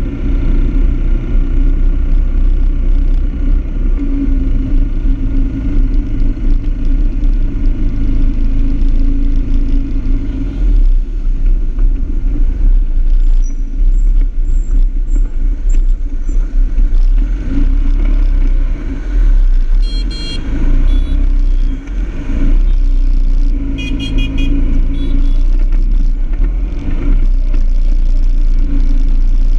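Scooters riding through city traffic, heard from a camera mounted on a moving motorbike: a steady engine hum under heavy wind rumble on the microphone. Short horn beeps sound twice, about two-thirds of the way through.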